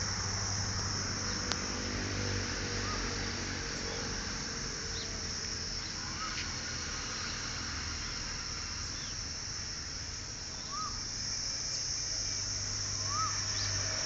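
Steady high-pitched outdoor insect chorus, crickets or cicadas, with a few short, faint chirping calls scattered through and a low steady hum underneath.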